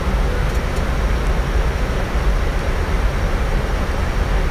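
Steady engine and airflow noise heard inside a Boeing 777 freighter climbing out after takeoff: a deep, even rumble under a broad hiss.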